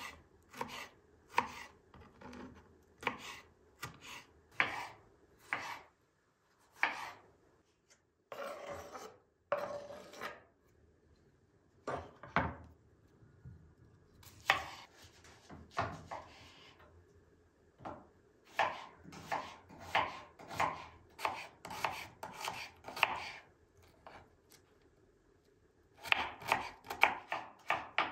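Kitchen knife cutting tomatoes and then an onion on a wooden cutting board: separate slicing strokes, each ending in a knock of the blade on the board, with a couple of longer scraping sounds midway, speeding up near the end into rapid dicing.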